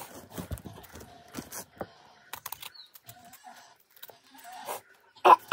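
Hands pulling bulbs out of a cut-open jackfruit over newspaper: irregular rustling, crinkling and clicking, with one short, louder sound just before the end.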